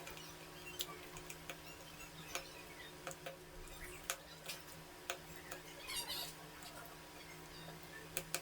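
Faint, irregular small clicks and ticks of a screwdriver and screws as the Xiaomi Mi Notebook Pro 15.6's bottom cover is refitted and screwed down, over a steady faint hum.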